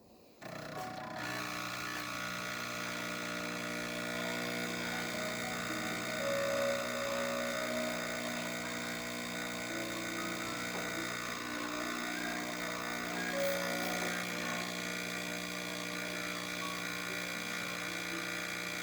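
Jura E8 espresso machine running, a steady electric buzz with a layered hum that starts abruptly about half a second in and holds level throughout.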